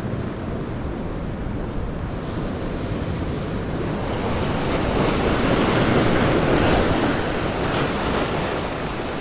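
Wind on the microphone and sea noise on an open boat, a steady rush that swells a little midway.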